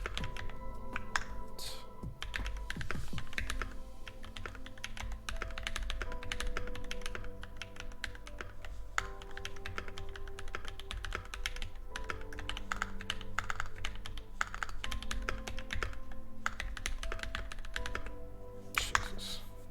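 Fast, continuous typing on an NK65 mechanical keyboard fitted with Creampaca linear switches (Durock housings with cream stems) and Cherry-profile keycaps: a dense run of key clacks, as in a typing-speed test.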